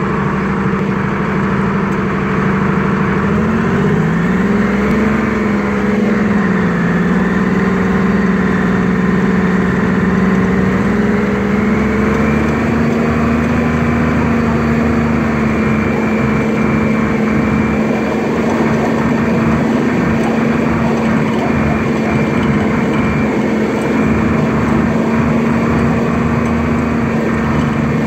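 M106 mortar carrier's engine running as the tracked vehicle drives. Its pitch rises and wavers a few seconds in, then climbs slightly and holds a steady note. It runs without faltering now that its fuel system problems have been sorted out.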